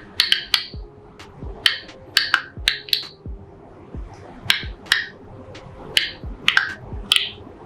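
Ultrasonic sounds recorded from grapevines, time-compressed and shifted down in pitch to be audible: a string of irregular sharp clicks, about two a second in uneven clusters, each with a short low thud beneath it.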